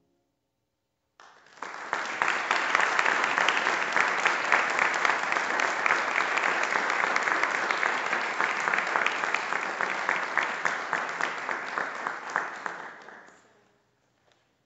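Audience applauding: a burst of clapping that starts about a second in, holds steady, and dies away near the end.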